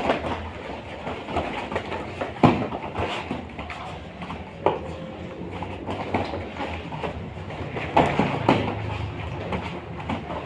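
Bare feet stepping and stamping on foam training mats, with body thuds and gi fabric rustling, as two judo-style players grip-fight standing. Several sharp thumps come through, the loudest about two and a half seconds in and again around eight seconds, over a steady low hum.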